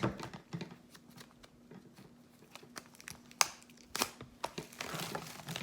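A music album and its packaging being handled and opened: crinkling and rustling, with a few short clicks, two of them sharp about three and a half and four seconds in, and busier rustling near the end.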